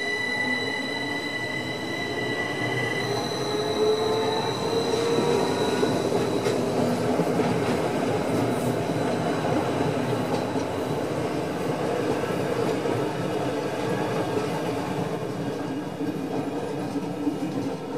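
A Rhaetian Railway ABe 8/12 Allegra electric multiple unit pulling away with its coaches. Over the first few seconds its motors whine, rising in pitch, while high steady tones stop about three to five seconds in. After that comes the steady rumble of the coaches' wheels rolling past on the rails.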